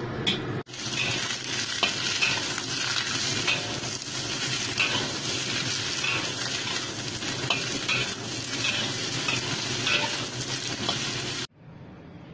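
Cubed gourd sizzling in hot oil in a wok while being stir-fried, with the spatula clicking and scraping against the pan now and then. The sizzle cuts off suddenly near the end.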